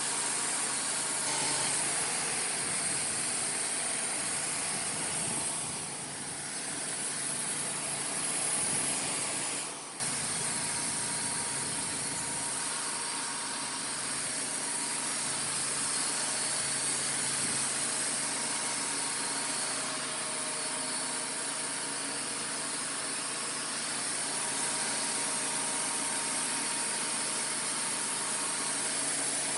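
Sawmill running steadily, its engine and saw making a loud, even noise with a strong hiss. The sound dips briefly about ten seconds in, then carries on.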